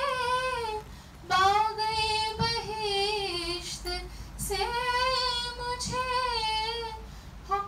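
A young woman singing an Urdu ghazal solo, drawing out long held notes with vibrato in three phrases, with short breaths about a second in and about four seconds in.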